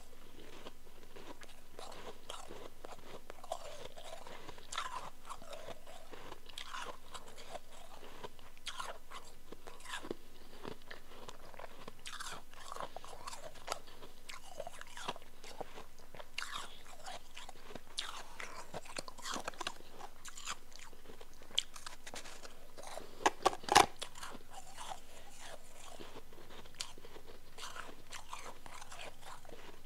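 Close-miked chewing of powdery chunk ice: a steady run of short, crisp crunches, with a louder cluster of bites about three-quarters of the way through.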